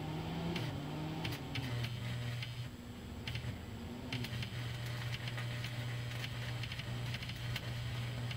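Lincoln AC-225 arc welder running on a 12-volt-to-220-volt power inverter: a steady electrical hum with its cooling fan running, and scattered light clicks.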